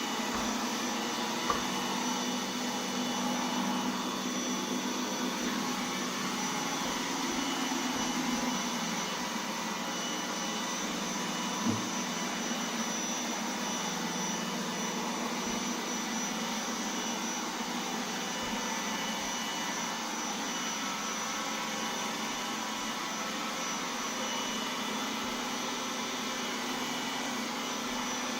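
Roomba 980 robot vacuum running steadily: a constant motor hum and suction noise with a thin high whine. Two short sharp clicks come through, one near the start and one about twelve seconds in.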